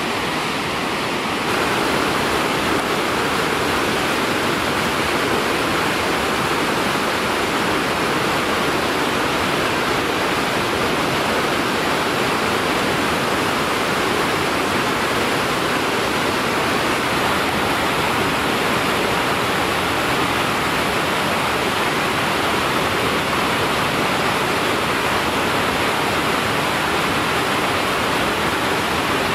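Whitewater rapid rushing: a steady, dense wash of river water over rocks, slightly louder from about a second and a half in.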